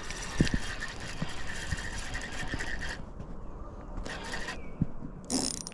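Fishing reel being cranked fast while a hooked fish is fought in, a rapid mechanical whirring clicking. It breaks off about three seconds in, then resumes in short spurts near the end.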